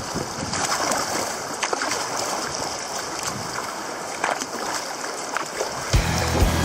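Sea water splashing and rushing around a kayak, with a few sharper splashes, over a steady wash of sea and wind. Background music with a steady beat comes in near the end.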